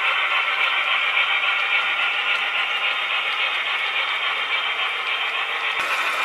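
HO scale model freight train running past, a steady mechanical clatter and rattle of the boxcars rolling on the track. The sound changes abruptly just before the end.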